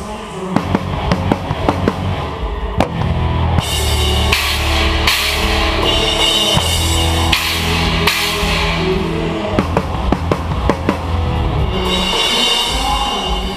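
Drum kit played hard in a live rock band, heard close to the kit: kick and drum hits with crash cymbals washing in about three and a half seconds in, and again near the end, over the rest of the band.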